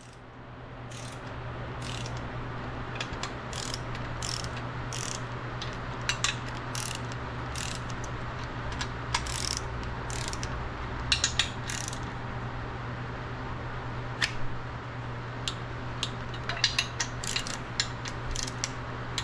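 Half-inch torque wrench ratcheting as main bearing cap bolts are run down to 180 inch-pounds, a string of sharp pawl clicks coming singly and in quick bunches. A steady low hum runs underneath.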